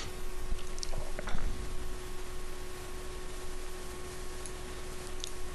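Steady hiss and a low steady hum from the recording microphone, with a few faint computer mouse clicks about a second in and near the end while the cursor works a scroll bar.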